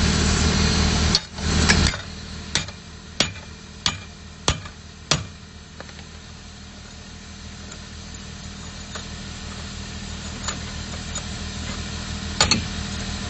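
Hammer knocking on a formwork tie-rod tensioner clamp to tighten it: five sharp metal knocks about two-thirds of a second apart, then a couple more near the end. An engine runs underneath, loud for the first two seconds and fainter after.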